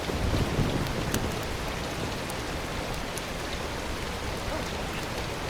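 A steady hiss with a few faint clicks.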